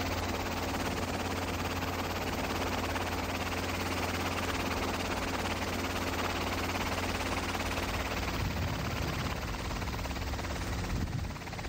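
Helicopter rotor and turbine noise heard aboard the aircraft: a loud, steady chopping din with a low hum underneath, the low hum shifting about eight seconds in.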